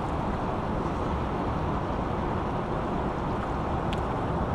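Steady rush of a small mountain creek's water running through its pools, an even noise heaviest in the low and middle range.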